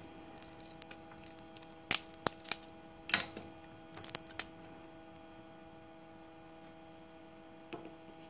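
Handling noise from a pried-open motorcycle regulator/rectifier and a screwdriver: a few small clicks about two seconds in, a louder clatter about three seconds in, and more clicks about four seconds in, then quiet. A faint steady hum runs underneath.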